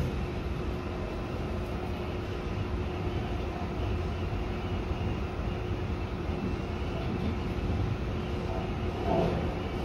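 Tobu 50000-series electric train running at speed, heard from inside the driver's cab: a steady rumble of wheels on the track with a steady motor hum. A few heavier knocks come from the wheels near the end.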